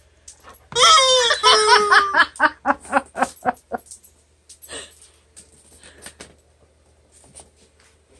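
Rubber squeaky chicken toy squawking loudly about a second in as a golden retriever bites it, with a person laughing in a run of fading bursts that die away by about four seconds.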